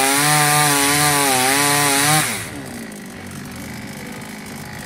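Royal two-stroke chainsaw cutting into an upright log, its engine pitch wavering under load. About two and a half seconds in the engine falls off sharply and runs on quieter as the saw is lifted out of the cut.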